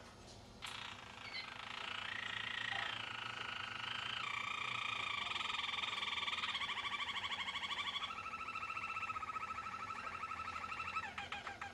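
Harz Roller canary singing its rolling song, starting about a second in: a continuous run of fast trills that moves to a new pitch every couple of seconds, changing to quick looping notes near the end.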